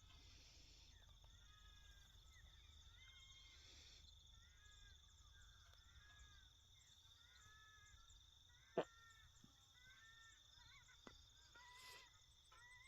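Faint countryside ambience: a steady high insect trill under small birds chirping in short, repeated arched phrases. One sharp click about nine seconds in.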